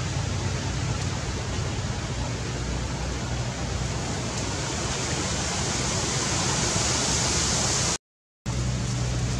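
Steady outdoor background noise: an even hiss with a low hum beneath it. It cuts out to silence for about half a second around eight seconds in.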